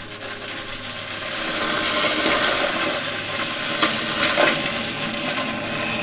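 Vacuum cleaner sucking up crunchy debris: a rushing hiss of air and grit that swells over the first second and a half, with a couple of sharp crackles about four seconds in.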